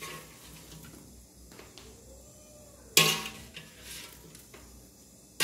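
Fork and air fryer basket clinking as potato wedges are pushed out onto a metal serving platter: a few faint clicks, then one sharp kitchenware clatter about three seconds in.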